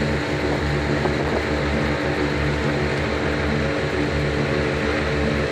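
Boat motor running at a steady speed, a constant engine drone with water and wind hiss.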